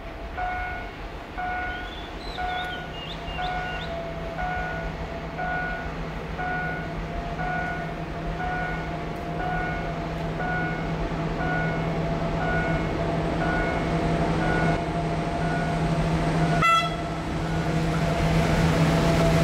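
Trackside railway warning loudspeaker beeping about once a second to signal an approaching train. Under it, the drone of a diesel locomotive hauling a cement freight train grows louder as it nears. There is a short sharp sound near the end.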